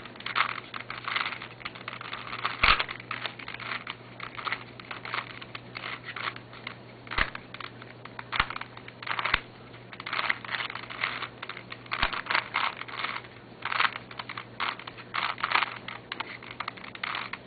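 An ungreased plastic Rubik's Cube being turned rapidly by hand, its layers clacking in quick irregular runs of clicks, with a few sharper knocks here and there.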